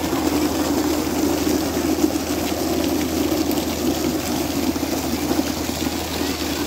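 Fountain jets spraying and splashing water: a steady rushing noise with a faint low hum underneath.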